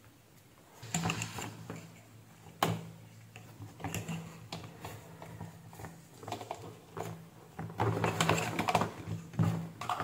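Light, scattered clicks and taps from handling multimeter probes, a power cord's plug and a pair of wire cutters, over a faint steady hum.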